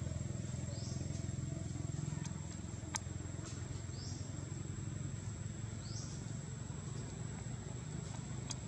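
Outdoor ambience: a steady low rumble under a constant high whine, with a short rising chirp repeated about every two seconds and one sharp click about three seconds in.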